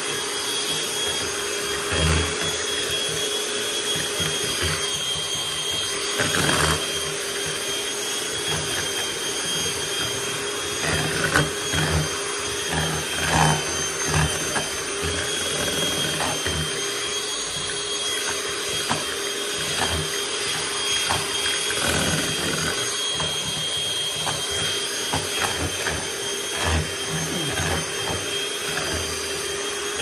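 Electric hand mixer running steadily, its beaters churning thick casting-investment slurry in a plastic tub, with the beaters knocking against the tub now and then.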